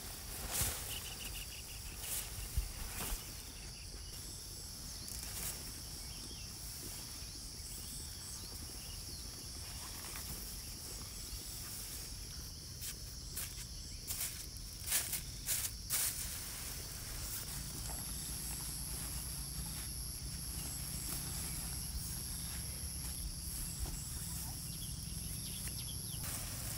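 Outdoor ambience with a steady, high-pitched insect drone; a second, higher tone joins past the middle. A few sharp clicks and knocks from handling or footsteps stand out, most of them near the start and about fifteen seconds in.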